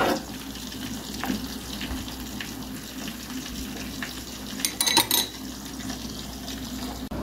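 Steady bubbling and sizzling of food cooking on a stovetop: beet soup boiling in an enamel pot, with flounder frying in a pan beside it. A few sharp clinks, loudest about five seconds in.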